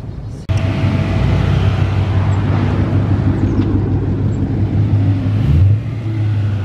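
Car engine running steadily and loudly, a low even note with a brief rise in pitch and loudness near the end; the sound starts abruptly about half a second in.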